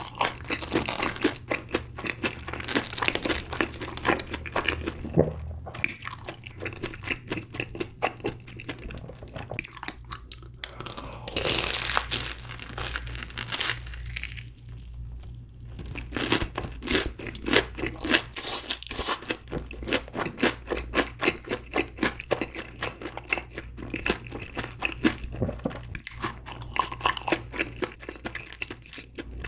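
Close-miked crunching and chewing of a fried mozzarella corn dog coated in cheddar cheese sauce: dense crackly bites through the crisp crust, then wet chewing.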